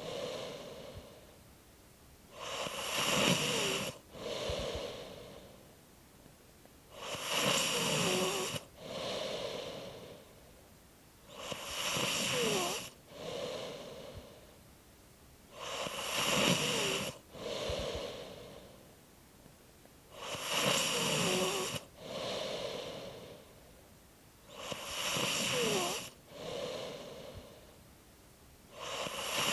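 A person snoring in a steady rhythm, one rasping breath about every four and a half seconds, each with a quiet falling squeak.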